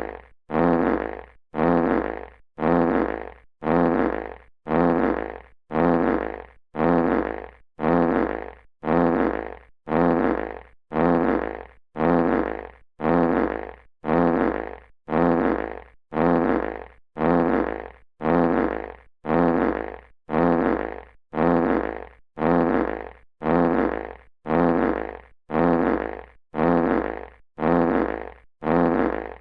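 A classic fart sound effect played on a loop, repeating a little faster than once a second, each fart starting loud and trailing off.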